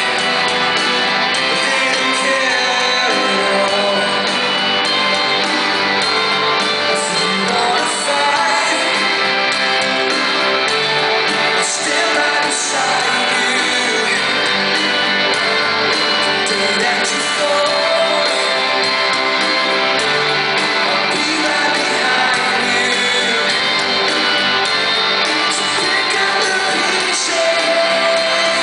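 A pop-rock band playing live, with electric guitars, drums and a lead vocal over a steady loud mix, recorded from within the audience.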